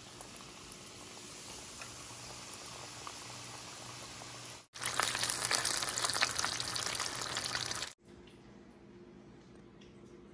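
Pretzel-breaded chicken strips deep-frying in hot oil in a wok: a steady sizzle, which turns louder and more crackly, with dense popping, about five seconds in. It cuts off suddenly near eight seconds, leaving a much quieter steady hiss with a faint low hum.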